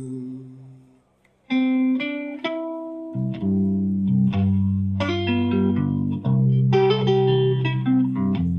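Live guitar-led band music. A held sound fades to a brief pause about a second in. Then guitar notes are plucked one after another, and a bass guitar comes in underneath about three seconds in.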